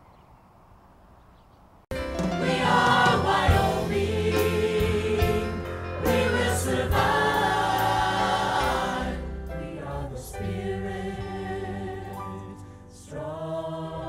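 Choral music with a choir singing over a full backing, starting abruptly about two seconds in after a brief faint lull.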